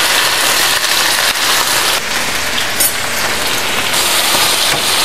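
Raw chicken pieces frying in hot oil in a stainless steel skillet: a steady sizzle, with a spatula turning the pieces near the end.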